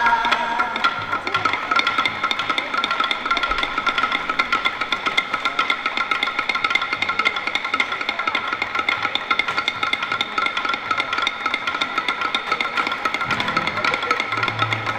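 Dadeumi beating: wooden sticks striking cloth on stone blocks in a fast, even clatter of many strokes. A sung line ends just as it begins.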